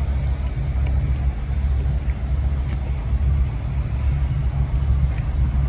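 Steady low rumble of a car heard from inside the cabin: engine and road noise, with a few faint ticks.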